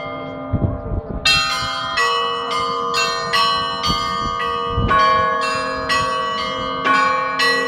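Hand-rung church bells pealing for Easter: small bells, their clappers pulled by cords, struck in a quick run of about three strikes a second over the lingering hum of the bells. The fast striking starts about a second in, after a few dull knocks.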